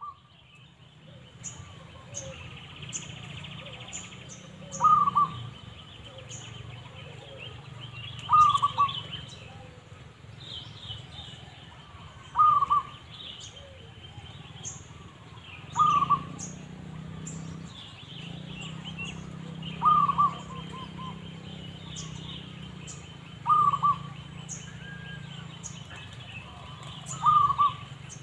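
Zebra dove (perkutut) calling: short, loud phrases repeated seven times, about every three and a half seconds, over fainter high chirps and ticks from small birds.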